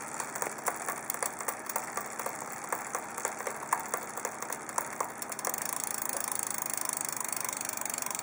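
Trek Domane 4.5 road bike's drivetrain making an abnormal clicking knock, about two clicks a second, in around 6th gear. About five seconds in, the clicks give way to a steadier, finer buzzing noise.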